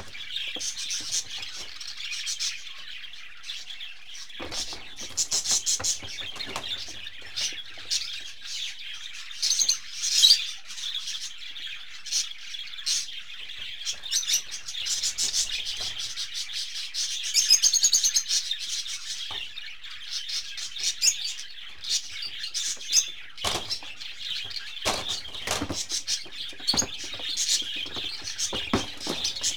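Small birds chirping and chattering without a break, with scattered knocks and scuffles from kittens tussling on the floor of a wire cage, most of them in the last few seconds.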